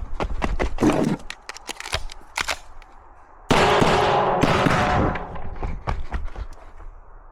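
A string of pistol shots, sharp cracks at an uneven pace, as a competitor shoots an IPSC handgun stage. About halfway in, a sudden louder stretch with ringing tones starts and fades away.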